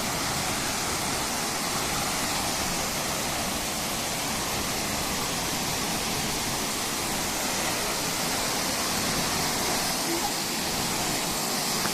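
Waterfall running, a steady even wash of falling water.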